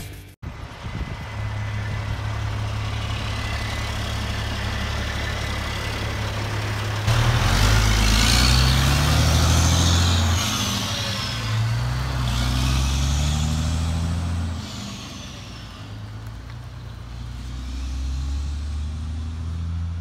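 Diesel engine of a car-carrier semi truck running steadily, then pulling away about seven seconds in, its pitch climbing and stepping down again through several gear changes, with a high whine rising and falling above it. It drops off after about fifteen seconds.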